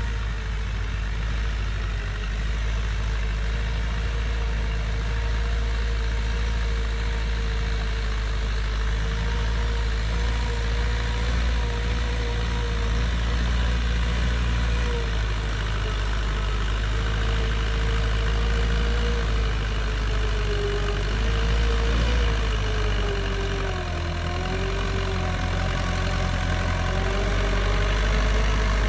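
Massey Ferguson 290 tractor's four-cylinder diesel engine running steadily under load while pulling a disc plough through dry soil. Its pitch wavers and dips briefly about three quarters of the way through, and it grows a little louder near the end.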